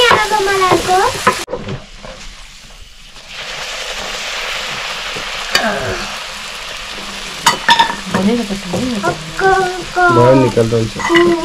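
Flatbread dough deep-frying in hot oil in an iron kadai: a steady sizzle, with a few sharp clicks of a utensil against the pan.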